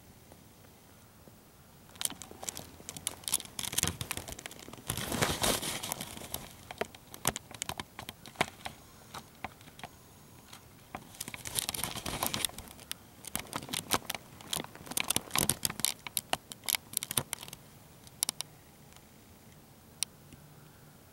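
Irregular bursts of rustling and crinkling mixed with sharp clicks, starting about two seconds in and dying away a few seconds before the end.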